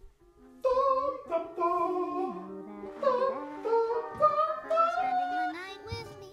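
Music carried by a sung or hummed melody with no beat, starting about half a second in.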